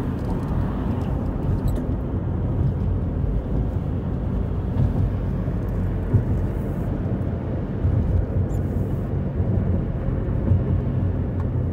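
Steady low rumble of tyre and engine noise from a car driving at road speed, heard from inside the cabin.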